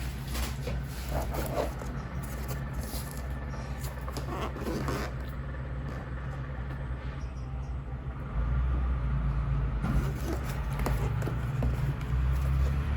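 Scattered scraping and rustling of items being handled, likely keyboard packaging during unboxing, over a steady low hum that gets louder about eight seconds in.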